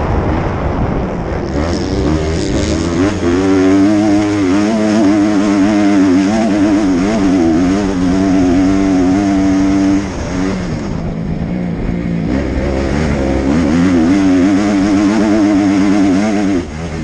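Dirt bike engine under throttle, its pitch wavering up and down as the rider works the throttle; it eases off about ten seconds in, then climbs again and drops near the end. Heard from the rider's helmet camera, with wind rumble underneath.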